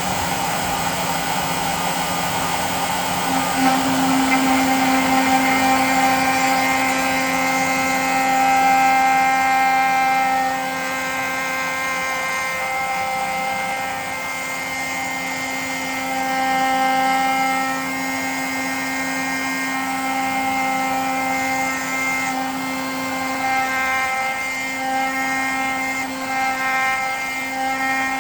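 DIY CNC router spindle running steadily with a high whine while milling aluminium washers. The level swells and eases slowly as the cut goes on.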